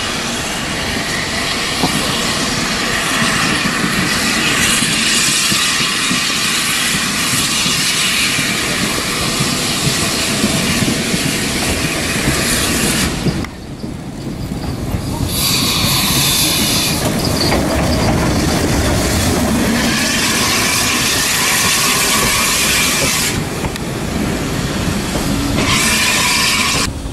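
0-6-0 saddle tank steam locomotive and its coaches rolling slowly past into the platform, wheels running on the rails with a steady clatter. The sound breaks off briefly at an edit about halfway through, then the passing coaches carry on with high wheel noise.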